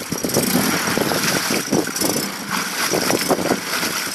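2009 Mercury 8 hp four-stroke outboard motor running in a test barrel.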